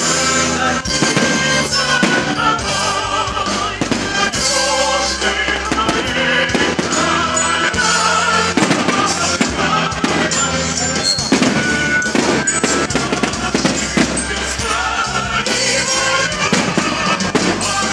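Music with a choir singing plays continuously while fireworks burst with repeated bangs throughout.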